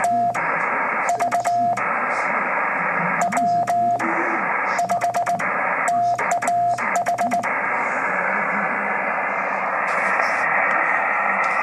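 Morse code, the call sign W5TAH, sent on a hand telegraph key: a steady mid-pitched beep keyed in dots and dashes, each element marked by the sharp click of the key's contacts, over constant radio hiss. The sending stops about seven and a half seconds in, leaving only the hiss.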